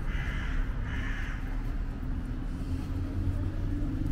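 Street traffic: a vehicle engine hum that grows louder near the end, with a crow-like bird cawing twice in the first second or so.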